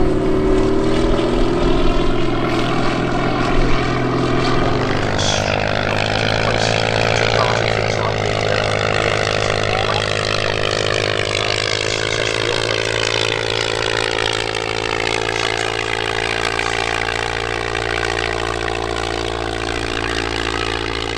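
Propeller aircraft engine running steadily. There is a shift in its note about five seconds in, then the pitch sags slowly and rises again near the end as the aircraft moves.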